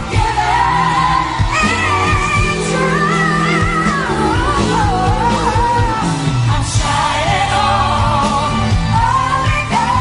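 A female singer's voice holding and bending long notes over a live band with bass and drums.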